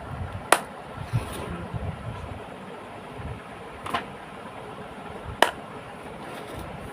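Hand handling a stacked clear plastic compartment organizer box of beaded jewelry: three sharp plastic clicks, about half a second in, near four seconds and about five and a half seconds in, over low rustling handling noise.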